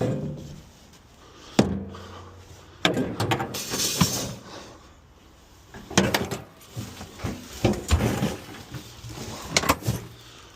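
A heavy wheelbarrow being wrestled and shifted: a string of irregular knocks and clunks, with a few sharp bangs.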